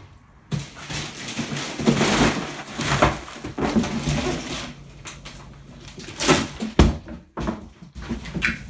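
Snack packets and small cardboard boxes being tipped out of a cardboard box onto a table: a long crinkling rustle of plastic wrappers with small boxes clattering, followed by a couple of dull thumps.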